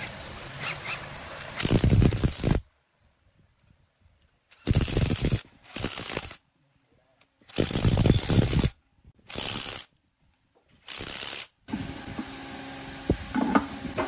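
A series of about six short bursts of mechanical clatter, each under a second long, separated by dead silence.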